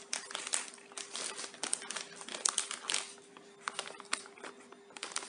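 Clear plastic packaging bag of a squishy toy crinkling as a hand presses and handles it, in irregular crackles.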